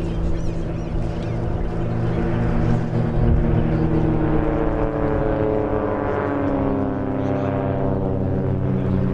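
Piston engines and propellers of three aerobatic biplanes (Pitts S-1 Special, Ultimate 10-300 and Christen Eagle II) droning overhead in close formation. Several engine notes overlap, and from about halfway through they slowly shift in pitch.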